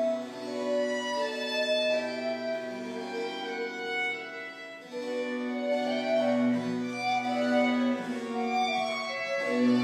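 Baroque chamber music: violin and a wooden woodwind playing melodic lines over cello and harpsichord. A new, fuller phrase with stronger low notes begins about five seconds in.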